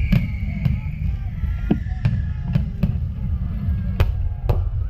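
Aerial fireworks bursting overhead: about eight sharp bangs at uneven intervals over a dense low rumble, with music playing underneath.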